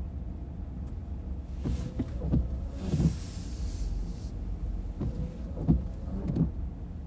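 Steady low rumble of a car idling, heard inside the cabin, with a series of soft low thumps and a brief hiss about three seconds in.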